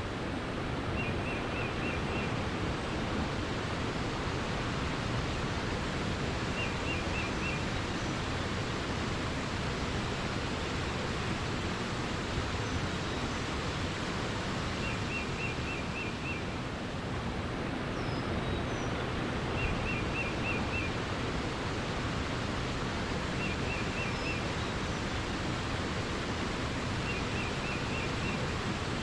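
Steady rush of flowing water, with a songbird repeating a short trill of about five quick notes every few seconds and a few faint, higher single chirps.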